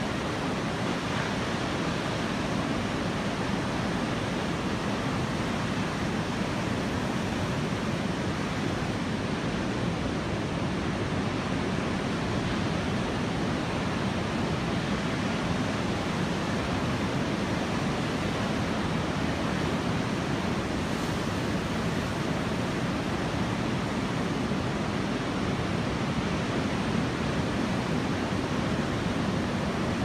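Large post-typhoon surf breaking on the beach, a steady, unbroken wash of noise from the waves and whitewater.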